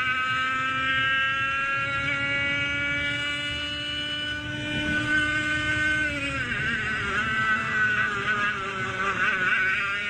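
100cc two-stroke racing kart engine running hard, its revs climbing steadily. About six seconds in the revs drop sharply, then waver unevenly at a lower pitch.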